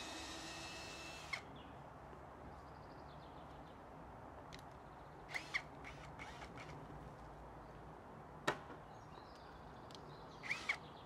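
A cordless drill whines steadily and stops with a click about a second in. Scattered clicks and a few short bird chirps follow: a pair around the middle and several near the end.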